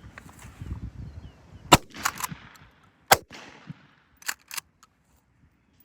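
Two shotgun shots about a second and a half apart, each followed by a few smaller clicks and knocks of handling.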